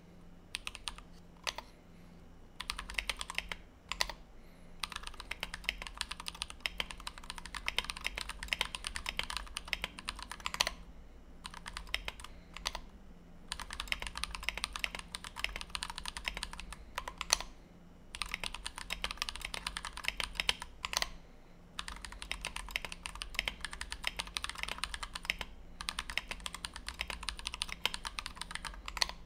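Fast typing on a 60% mechanical keyboard with a brass plate, lubed and filmed Everglide Dark Jade linear switches and PBT OEM-profile blank keycaps. Rapid streams of keystrokes run for a few seconds at a time, broken by short pauses of about a second.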